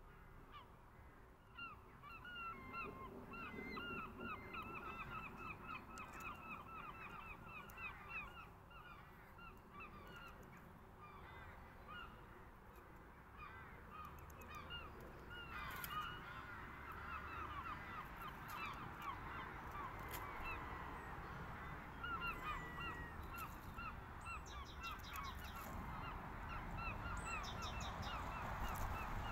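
A flock of birds calling, many short repeated calls overlapping, denser and louder in the second half.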